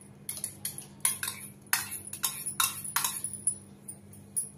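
Boiled potato pieces tipped from a steel bowl into a glass bowl of thin tamarind chutney: a quick run of about ten plops and clinks in the first three and a half seconds, then it stops.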